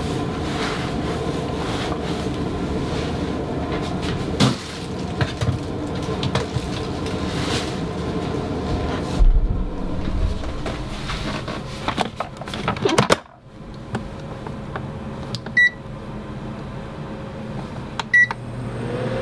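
A rice cooker's metal inner pot being handled and set in place, with clunks and clatter midway and a sharp click as the lid shuts, then two short high beeps from a Panasonic rice cooker's control buttons being pressed near the end to start cooking.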